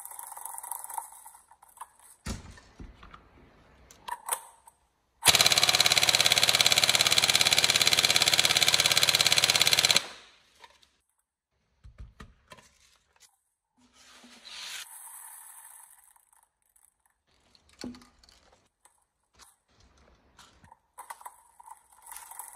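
Airsoft electric rifle, a Tokyo Marui 416 NGRS with a Warhead high-speed motor, firing one long, steady full-auto burst of about five seconds under stress testing. Scattered small clicks and knocks before and after the burst.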